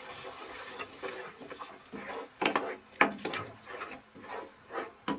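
A wooden spatula stirring and scraping thick masala in a kadhai: a series of irregular scrapes and knocks against the pan.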